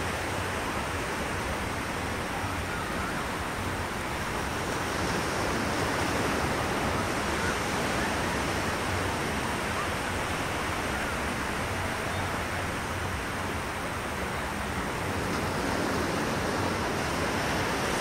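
Small surf waves washing in over a flat sandy beach: a steady rushing hiss that swells gently now and then.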